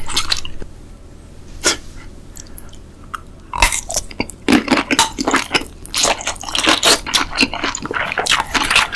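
A person chewing food close to the microphone: wet mouth smacks and chewing clicks, sparse at first, then coming thick and fast from about a third of the way in.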